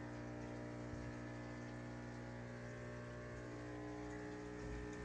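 Steady low hum of aquarium pumps and filters running, with an even drone that does not change.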